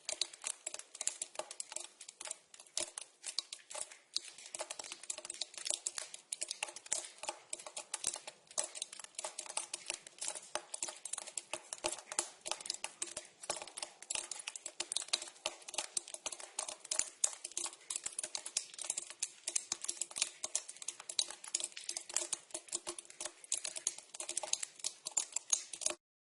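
Water dripping into a pipe: a rapid, irregular patter of drops, each with a hollow ring from the pipe. It stops abruptly at the very end.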